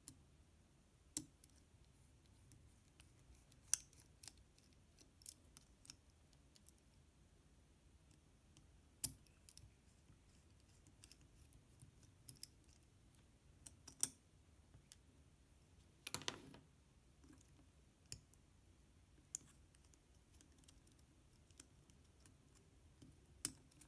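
Faint, irregular clicks and small scrapes of a precision screwdriver turning the tiny screws of a micro drone's plastic canopy and of fingers handling the canopy, with one longer scrape about two-thirds of the way through.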